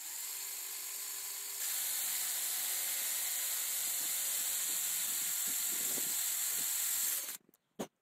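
Power drill running with a small twist bit, boring a hole through a zinc-plated metal plate held in a vise. A steady whirr gets louder about a second and a half in and stops abruptly a little after seven seconds, followed by a short click.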